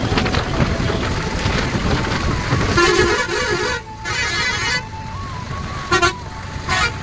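Truck moving down a highway with steady road and wind noise. From about three seconds in, a vehicle horn honks in several blasts with short gaps while overtaking another truck.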